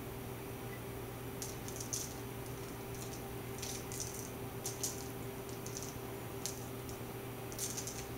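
Faint, scattered rustling ticks of grated Romano cheese being pinched from a small glass bowl and sprinkled onto buttered sourdough bread, over a steady low hum.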